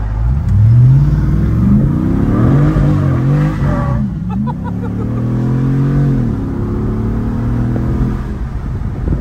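Swapped-in 392 Hemi V8 (6.4-litre) in a Jeep Gladiator accelerating, its pitch climbing, dipping sharply about four seconds in, rising again, then settling to a steady run and falling away near the end.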